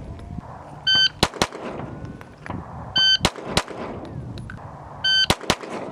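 An electronic shot timer beeps three times, about two seconds apart, and each beep is followed within about half a second by two quick pistol shots: a fast two-shot drill off the start signal.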